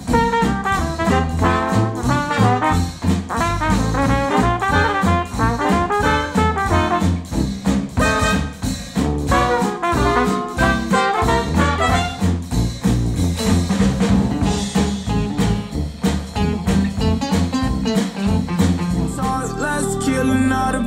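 A jazzy tune with brass played back through Focal Chora 806 bookshelf speakers driven by a NAD C700 integrated amplifier, picked up by microphone in the room. Near the end it gives way to the next track, a hip hop/pop song.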